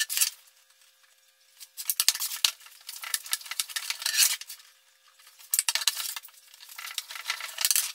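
Metal tube being slid and worked by hand over wooden sticks on a tabletop while it is bent to a curve. It scrapes and clatters in a few stretches of a second or two each, with short pauses between.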